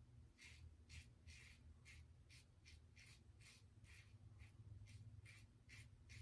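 Karve Overlander double-edge safety razor scraping through lathered stubble on the upper lip in short, quick strokes, about two or three a second, faint over a steady low hum.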